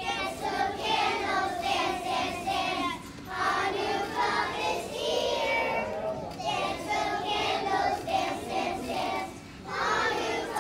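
A group of kindergarten children singing a song together as a class, with short pauses between phrases about three seconds in and again near the end.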